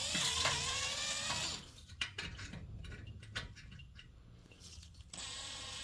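Electric drill with a 1/8-inch bit spinning up and running for about a second and a half against a snapped, rusted exhaust bolt, then stopping. A few sharp clicks follow, and the drill starts up again near the end. The bit is walking on the broken bolt's uneven face rather than biting.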